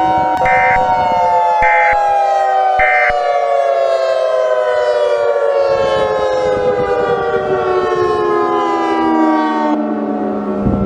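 A civil-defense-style siren sounding a chord of tones that holds for about a second, then winds down, falling slowly and steadily in pitch until the upper tones cut off near the end. Early on it is overlaid by three short, evenly spaced data bursts of an EAS end-of-message signal.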